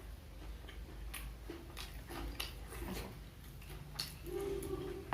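A person chewing fried snacks close to the microphone: irregular crisp clicks and crunches, with a brief low hum near the end.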